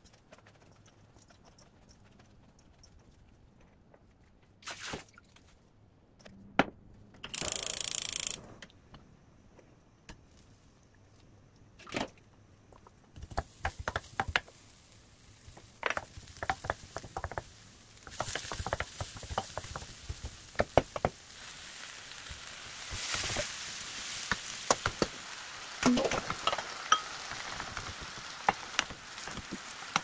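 Chopped green onion and garlic sizzling in oil in a nonstick wok, with a wooden spatula clacking and scraping against the pan. For the first part there are only a few knocks and a brief hiss, and the steady sizzling sets in partway through.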